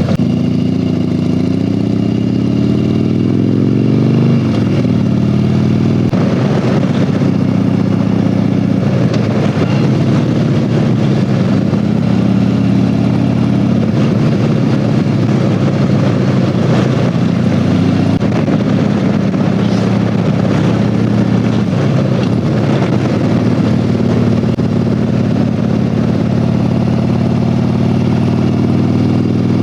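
Harley-Davidson Heritage Softail's V-twin engine under way, climbing in pitch over the first few seconds, dropping at a gear change about four seconds in, then running at a fairly steady cruise.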